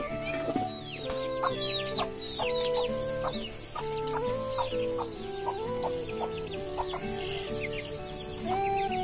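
Instrumental background music with a slow, stepping melody, mixed with many short, high, falling calls from chickens scratching about on the ground.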